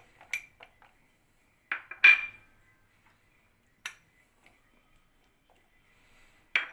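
A metal spoon clinking against small glass bowls as chopped vegetables are scraped out: about five separate sharp clinks, the loudest about two seconds in, with a short ring.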